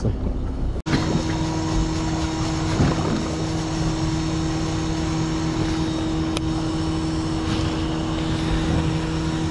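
Boat engine running at a steady speed, a constant drone over wind and water noise, starting about a second in.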